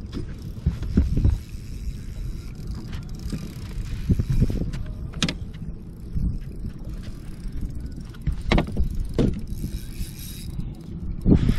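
A hooked bass being fought from a boat: several sharp knocks and clatters of feet and a landing net on the deck over a low steady rumble of wind on the microphone, with a spinning reel being cranked near the end.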